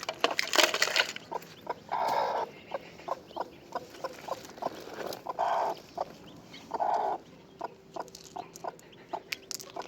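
Chickens clucking, with several short calls of about half a second and many sharp clicks between them.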